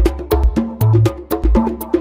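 Instrumental music with a quick percussion pattern of sharp clicks and wood-block-like strikes over a deep bass line and short melodic notes.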